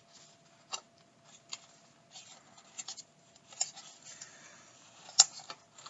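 A mailed envelope or package being opened and handled by hand: scattered soft rustles and crinkles of the packaging, with a sharper snap about five seconds in.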